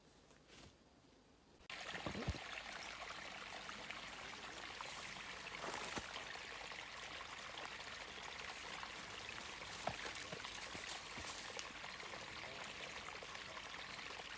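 Running water of a stream, a steady trickling rush with small splashes, cutting in suddenly about two seconds in.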